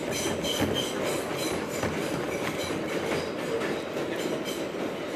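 New York City subway train running, heard from inside the car: a steady rumble and rattle with repeated clicks of the wheels over the rail joints, and a few short high squeaks.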